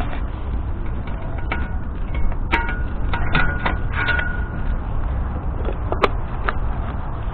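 Clicks and short metallic clinks of a bicycle lock being handled: one about a second and a half in, a run of several between about two and a half and four seconds, and a sharp one near six seconds, over a steady low rumble.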